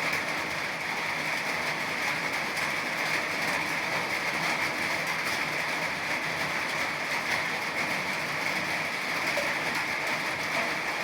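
Steady rain falling: an even hiss made of countless small drop taps, holding a constant level throughout.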